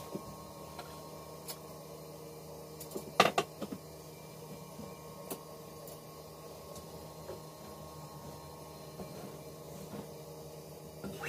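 Steady electric hum from a sewing machine's running motor while it is not stitching, with scattered light clicks and knocks from fabric being handled on the machine table, and a short cluster of sharper knocks about three seconds in.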